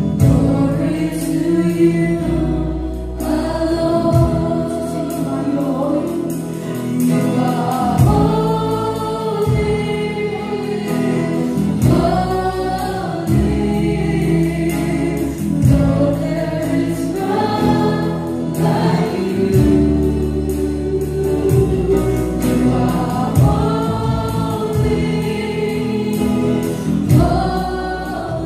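Live gospel praise-and-worship song: a small group of mostly women's voices singing together over a band of drum kit, acoustic guitar and bass guitar, with steady beats and a sustained bass line.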